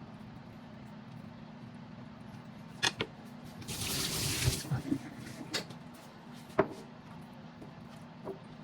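Kitchen tap running for about a second, with a few sharp clinks and knocks before and after, over a steady low hum.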